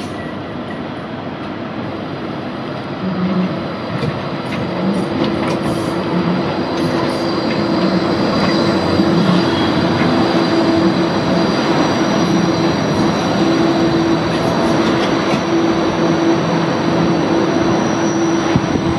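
Bombardier Flexity 2 light rail tram approaching and passing close by, its steel wheels running on the rails with a steady low hum. It grows louder over the first several seconds and stays loud as the long cars go past.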